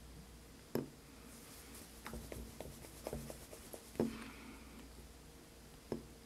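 Light handling taps and clicks in a quiet room: a sharp tap about a second in, a run of softer clicks in the middle, a louder tap about four seconds in and another near the end, over a faint steady hum.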